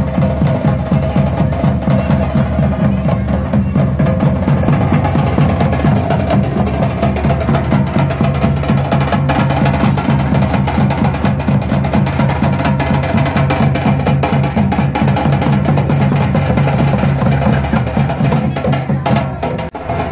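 Garhwali folk drums (dhol) beaten by hand and stick in a fast, steady dance rhythm, with a steady pitched tone running underneath.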